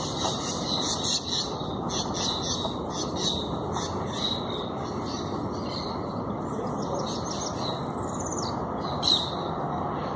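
Birds chirping and calling, with a falling call near the end, over a steady background noise.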